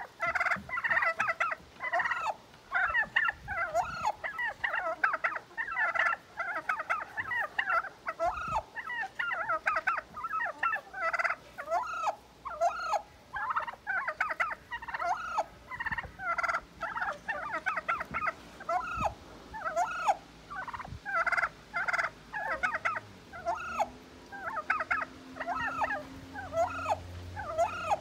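Bronze turkey hen calling almost without pause in fast runs of short, agitated notes: an upset hen scolding a white tom.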